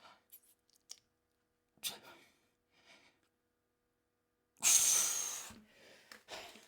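A man breathing hard under exertion: a few short breaths, then a loud, forceful exhale lasting about a second, followed by more short breaths.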